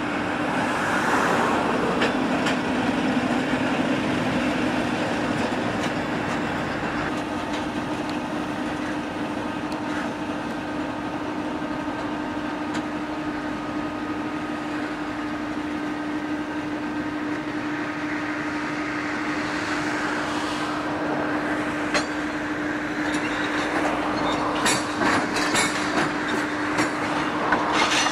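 Henschel diesel shunting locomotive running at a slow, steady drone as it moves loaded steel-slab wagons. In the last third, a run of sharp clicks and knocks from the train's wheels over the rail joints.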